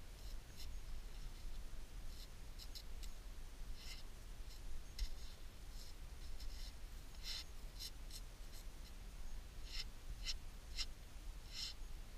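Gloved fingers scratching and rubbing caked soil off the surface of a dug-up, rusted metal object, in short irregular scrapes.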